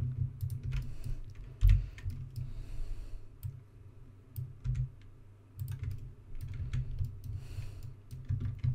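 Computer keyboard keys and mouse buttons clicking irregularly as shortcuts are pressed, with low desk thuds, one louder knock about two seconds in.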